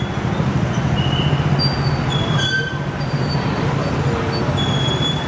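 Road traffic: a steady rumble with several brief high-pitched squeals.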